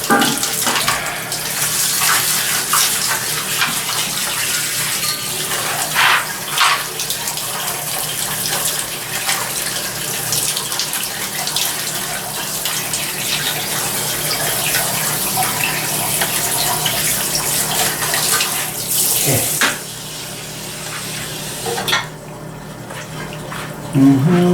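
Water from a tap running over a Honda CB400 cylinder head as it is rinsed clean of oil and grease, with a few knocks of the part being handled. The running water cuts off near the end.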